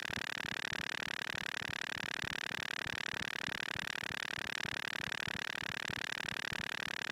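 Moog Mother-32 analog synthesizer modulated by a Comdyna GP-6 analog computer, putting out a steady buzzy drone with a fast, even pulsing.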